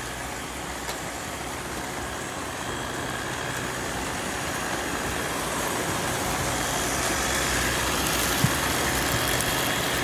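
Several robot vacuums (iRobot Roombas, a Eufy and a Shark ION Robot) running together as they sweep up scattered rice, giving a steady whir of motors and brushes with a faint high whine. The sound slowly grows louder.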